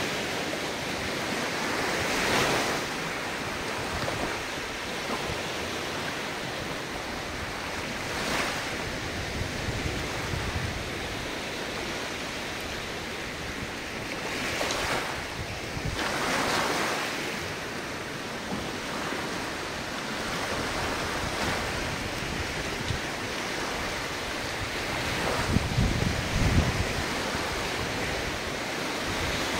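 Ocean surf: waves breaking and washing ashore every several seconds over a steady wash of water, with a deeper, louder wave crashing near the end.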